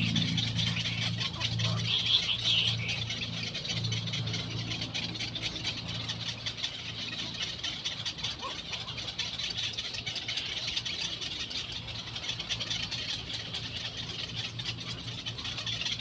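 A steady low motor-like hum with a high hiss over it. A few faint calls from little egret chicks come about two seconds in.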